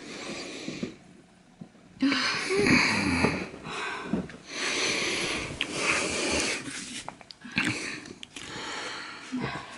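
A woman breathing heavily, three long, hissing breaths of about two seconds each, the first with a low moan in it; she may be in early labor.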